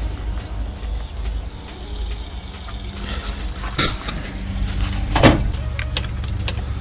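A kitchen knife knocks against an aluminium stock pot, once about four seconds in and more loudly about five seconds in, with a few lighter ticks after. Under it runs a steady low rumble.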